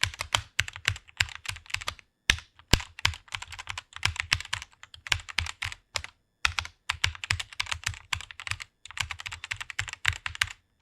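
Fast typing on a computer keyboard: quick runs of keystroke clicks broken by brief pauses.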